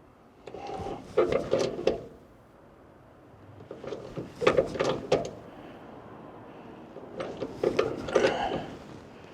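Three bursts of metallic clicking and clattering from hand tools and parts being worked.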